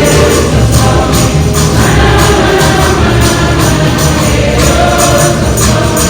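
Choir singing gospel music with tambourine keeping a steady beat of about two strokes a second.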